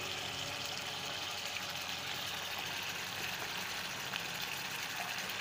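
Thick koi fish curry sizzling steadily in a pan as it cooks down.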